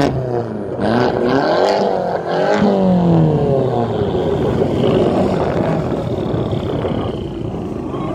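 Several Fiat Abarth engines revving at once, their pitches overlapping as they rise and fall through the first few seconds, then settling into a steadier mixed engine and exhaust drone.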